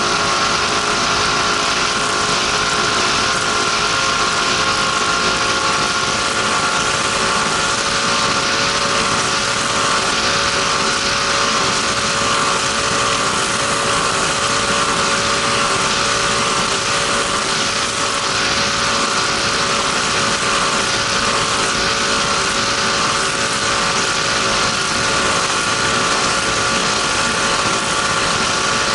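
Race powerboat's engine running steadily at speed, heard from on board over a constant rushing noise.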